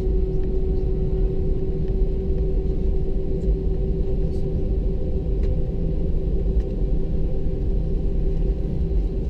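Airbus A319 cabin noise: a steady rumble of the jet engines with a constant hum, loudness level throughout, as the airliner rolls at low power shortly before takeoff.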